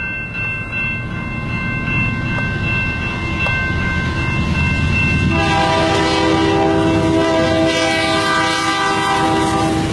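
Canadian National freight train approaching a grade crossing, its diesel locomotives rumbling low. About halfway through, the lead locomotive's multi-chime air horn sounds one long chord that stops just before the end.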